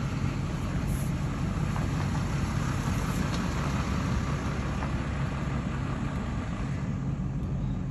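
Pickup truck engines running with a steady low hum, heard from inside a pickup's cab, as a Ram pickup towing a loaded flatbed trailer pulls slowly past close alongside.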